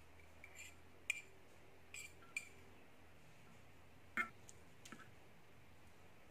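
Metal tweezers clinking against a miniature stainless steel bowl and pot: about five light, sharp clinks, the loudest about four seconds in.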